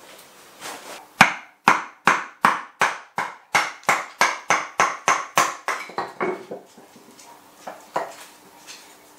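Wooden mallet striking the spine of a Nessmuk knife about three times a second, batoning the blade down through a willow spoon blank to split off an edge. The first blow is the loudest. Two lighter knocks of wood on wood follow near the end.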